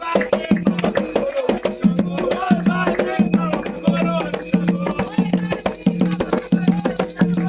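Umbanda ritual song: voices singing over a steady drum beat of about two strokes a second and shaken rattles.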